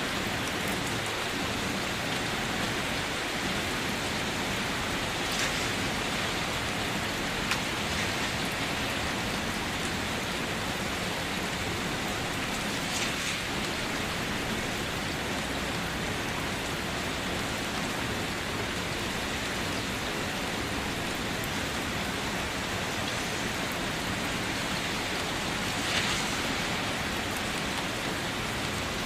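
Steady rain falling, with a few louder drops or splashes standing out now and then.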